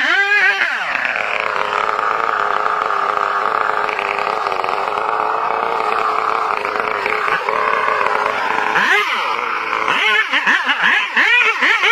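Chainsaw engine dropping in pitch as it goes into a cut and running loaded with a rough buzz. About nine seconds in it speeds up again and revs up and down unevenly.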